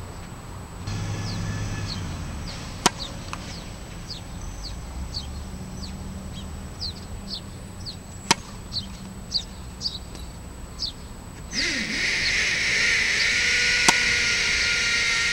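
Tennis racket striking the ball on serves: three sharp pops about five and a half seconds apart. Birds chirp between the hits, and a steady high-pitched hiss comes in about three-quarters of the way through and is the loudest sound from then on.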